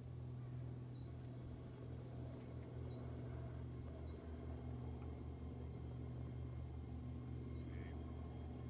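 A small bird repeats a short, high chirp that slides downward, roughly once a second, over a steady low hum.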